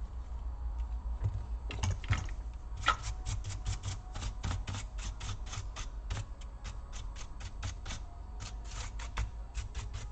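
A fast run of small sharp clicks, about five or six a second, starting about three seconds in and stopping near the end, over a steady low hum.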